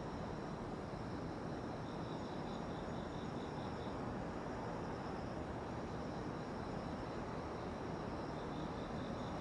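Night insects singing: steady high trilling, with a pulsed chirp of about four a second coming in about two seconds in and again near the end, over a steady low rushing noise.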